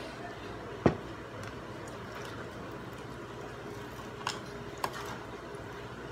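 Mealtime table noises: one sharp knock about a second in, the loudest sound, and two lighter clicks a little after four seconds and just before five, over a steady room hum.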